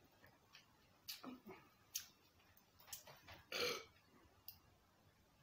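Faint mouth sounds of eating and drinking cola: a few short low grunts and clicks. The loudest, a brief noisy breath-like sound, comes about three and a half seconds in.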